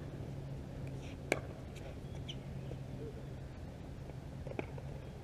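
Pickleball paddles striking the hard plastic ball in a rally: a sharp pock about a second in and a fainter one near the end, over a steady low hum.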